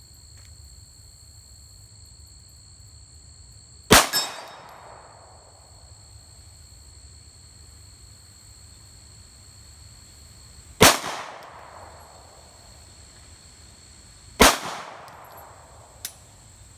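Three pistol shots from a Glock 23 Gen 4, spaced about 7 and then 3.5 seconds apart, each with a long fading tail: the last three rounds in the magazine.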